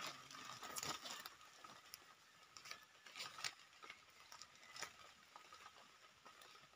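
Faint scattered rustles and small clicks of hands and a knife working in dry leaf litter, cutting a wild mushroom from the ground and scraping its stem.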